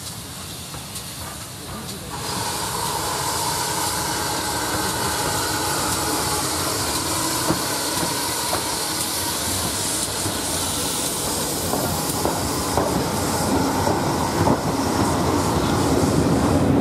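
GWR 6400 Class 0-6-0 pannier tank steam locomotive No. 6430 approaching and passing with its train. A steady hiss of steam starts suddenly about two seconds in. Later the wheels clatter over the rail joints as the coaches roll by, growing louder toward the end.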